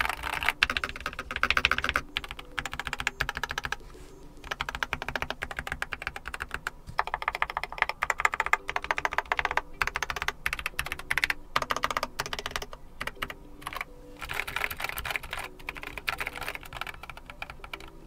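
Rapid typing on a Keychron K4 HE 96% keyboard with lubed Gateron Nebula linear magnetic (Hall effect) switches: fast runs of key clicks with short lulls between bursts.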